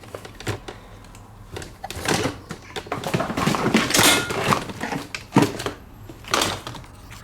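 Irregular knocks, clunks and rattles of tools and metal parts being handled and set down on a workbench, the loudest about two, four, five and a half and six and a half seconds in.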